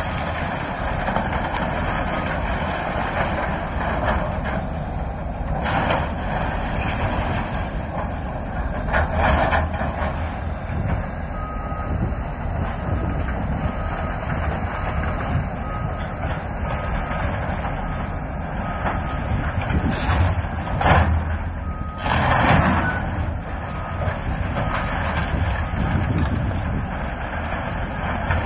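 Diesel excavator running while it tears into the wooden structure of a grain elevator. Timber cracks and debris crashes down several times. From about eleven seconds in, a backup alarm beeps steadily at an even pace.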